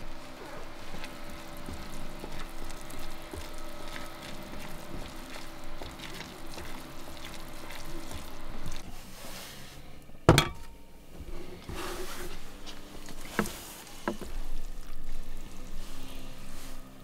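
Noodles cooking in a frying pan on a portable gas cassette stove, stirred with chopsticks, over a steady hum. In the second half, chopsticks clink sharply against the pan and metal cups a few times, the loudest about ten seconds in, among wet noodle sounds.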